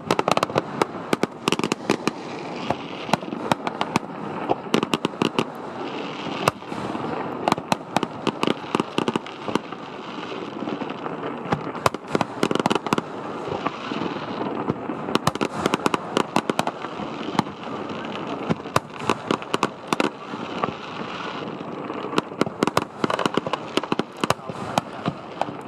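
Fireworks display: a dense, irregular run of sharp bangs and crackles, one after another, over a steady background rumble.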